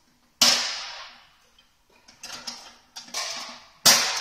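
Sharp metal clanks from hand-tool work on the steel base of a portable manual lift truck, each ringing out briefly. A strong one comes early, then a few lighter knocks, and the loudest comes near the end.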